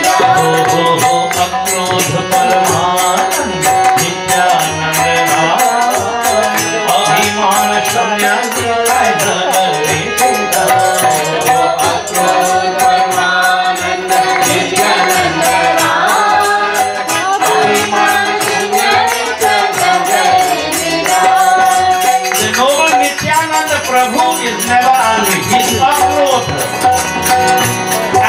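A man's voice singing a devotional bhajan to harmonium accompaniment, the harmonium holding a steady drone under the melody, with a fast, even percussion rhythm.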